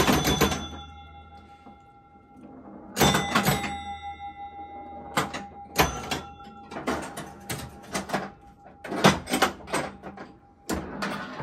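1962 Gottlieb Flipper Clown electromechanical pinball machine in play: flurries of relay and score-reel clatter with chime bells ringing. The clusters come every second or so, after a quieter stretch at the start.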